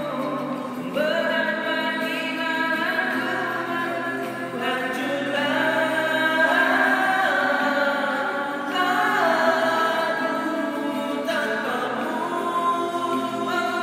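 Male singing accompanied by two acoustic guitars, an unplugged song performed live.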